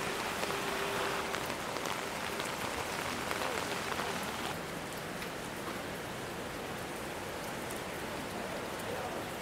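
Steady rain falling: a continuous hiss with scattered ticks of drops striking, a little heavier in the first few seconds.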